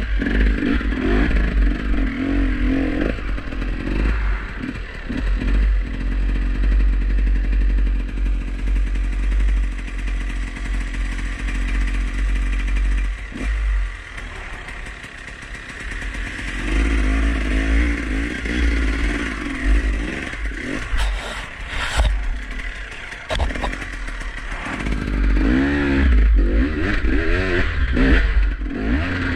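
KTM 300 EXC single-cylinder two-stroke enduro engine revving up and down as the bike is ridden over rough ground, dropping to a quieter, lower note about halfway through before picking up again. Clattering and a few sharp knocks from the bike hitting the terrain, bunched a little past two-thirds of the way in.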